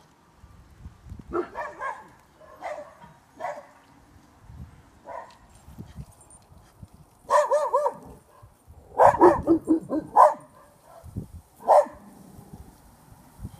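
Dogs barking in short, scattered bouts, with a longer bark of wavering pitch about seven seconds in.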